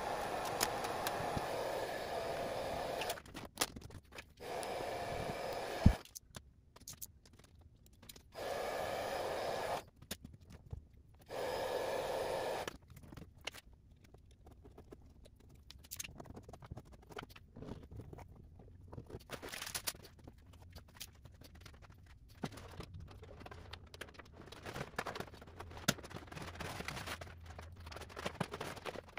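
Vinyl wrap film being laid onto a golf cart's plastic body panel: scattered scraping, crinkling and tapping of the film. Several stretches of steady hiss start and stop abruptly, and there is one sharp knock about six seconds in.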